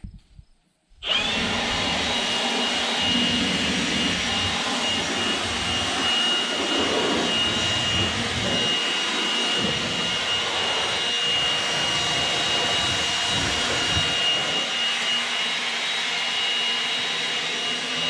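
Air blower starting up about a second in with a short rising whine, then running steadily with a high whine and rushing air, blowing dust and chaff out of a round baler.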